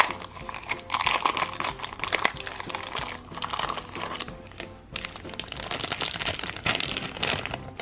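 Thin clear plastic toy bag crinkling and rustling in the hands as a small plastic figure is worked out of it, in irregular crackly bursts throughout, over quiet background music.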